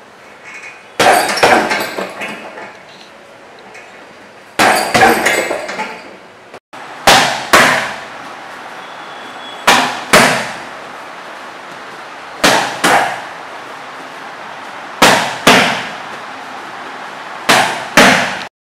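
Strikes smacking a hand-held Muay Thai strike shield: after a short cut about a third of the way in, five pairs of hits, a jab then a right elbow, about every two and a half seconds, each hit followed by a short echo. Before the cut come two bunches of several quick hits.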